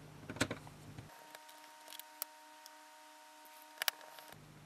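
Small screwdriver driving tiny screws into a laptop's internal expansion card: a few faint scattered clicks and ticks, with a closer pair of sharper clicks near the end.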